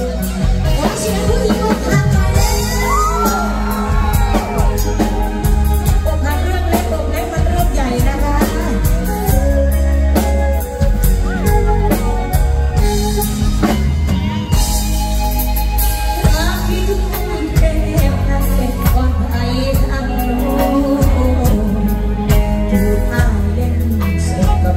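Live band playing a Thai luk thung song with drum kit, bass and guitar, loud and continuous; the singer's voice comes in near the end.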